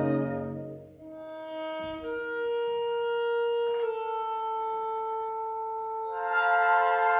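Concert band playing: a loud full chord dies away about a second in, leaving soft wind instruments holding a few long notes, before the fuller band comes back in near the end with bright, bell-like high notes.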